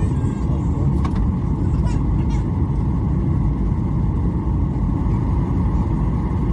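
Steady cabin noise inside a Boeing 737-800 airliner in flight: a low, even rumble of the turbofan engines and rushing air against the fuselage, with a faint steady hum over it.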